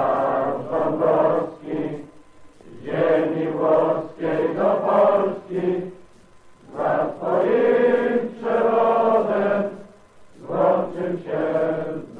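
Many voices singing together in unison in long, slow phrases, with a short pause about every four seconds.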